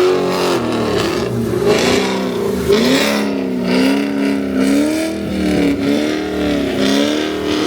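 Car engine revving up and down repeatedly, its pitch rising and falling several times, as the car sits stuck in snow and tries to drive out.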